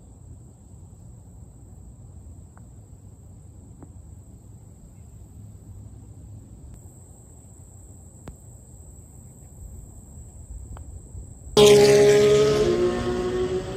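Outdoor summer ambience of wind rumbling on the microphone with a steady high insect buzz. Near the end a much louder droning sound with several tones starts suddenly, its pitch stepping down, and cuts off short.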